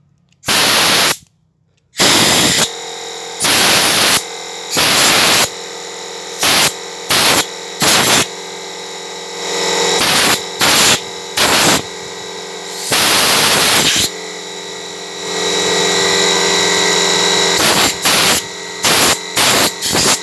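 Compressed-air blow gun blasting through a motorcycle carburetor's jet passages in a rapid series of short hissing bursts, with a few longer blasts, over a steady hum. The air is clearing dirt from clogged slow-jet and main-jet passages, the cause of hard starting and a high idle.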